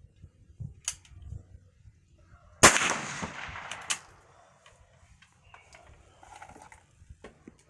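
A single shot from a bolt-action Cricket .22 LR rifle about two and a half seconds in, its report dying away over about a second, with a few small clicks before and after it.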